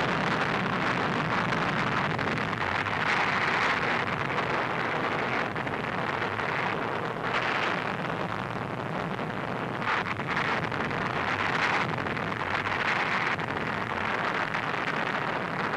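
A continuous roaring rush of noise that swells and eases every few seconds, with no distinct strokes: the newsreel soundtrack's roar for the atomic bomb blast and its rising smoke cloud.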